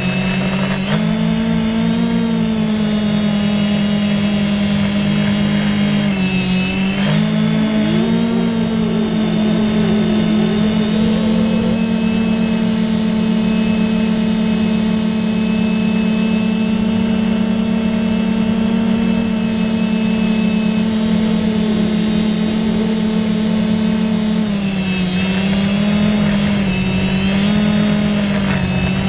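Multirotor drone's motors and propellers humming steadily, their pitch shifting about a second in, around six to seven seconds, and again near the end as the motor speeds change, with a constant high electronic whine above.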